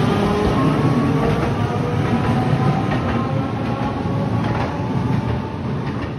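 A Toyama city tram, the old-style 7000-series car, pulls away. Its motors give a whine that rises slowly in pitch as it gathers speed, over the rumble of steel wheels on street rails and scattered clicks.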